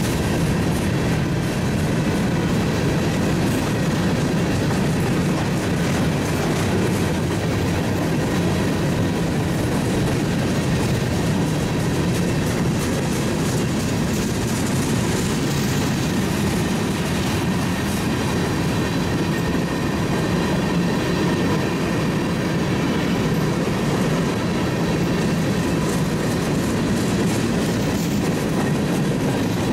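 A train rolling steadily past, its cars' wheels clicking over the rails, with an even rumble throughout.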